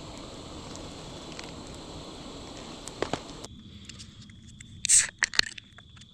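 Campfire crackling with scattered snaps. After a cut, crickets chirp steadily, and about five seconds in a drink is cracked open with a short, sharp hiss followed by a few clicks.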